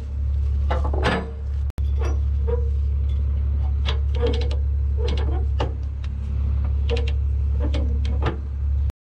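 Engine drone of a moving vehicle, steady and low, with repeated clunks and rattles from loose gear. The drone breaks off abruptly twice.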